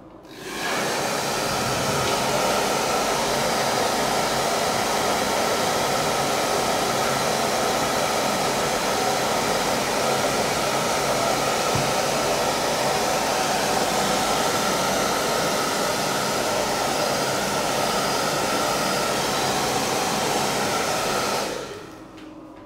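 Hair dryer blowing steadily, drying wet watercolour paint on paper; it is switched on about half a second in and switched off near the end.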